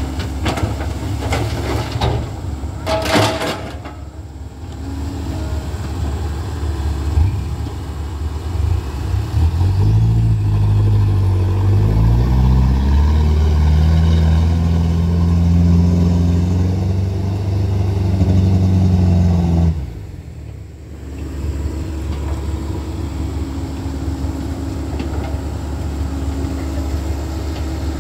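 Rock clattering as a Komatsu excavator's bucket dumps it into a steel dump truck bed, with sharp impacts in the first few seconds. From about ten seconds in, the loaded dump truck's diesel engine pulls hard, its pitch rising and then holding as it climbs out of the pit, until it cuts off abruptly. The excavator's engine then runs steadily.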